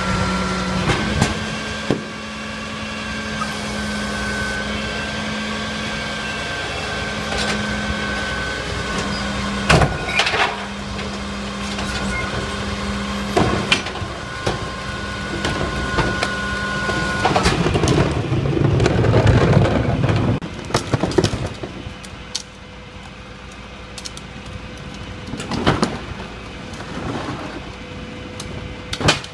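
Heil Formula 5000 rear-loader garbage truck on a 1980s Peterbilt 310 chassis running its packer cycle. The truck's engine gives a steady drone with a high whine, broken by sharp clanks of carts and metal. About two-thirds through comes the loudest stretch, a noisy surge as refuse is compacted in the hopper, after which the truck settles quieter at idle.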